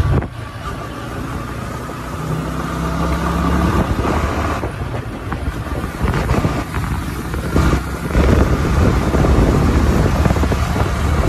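Sport motorcycle engine running while riding at road speed, its steady drone overlaid by rushing wind noise that grows more fluttery in the second half.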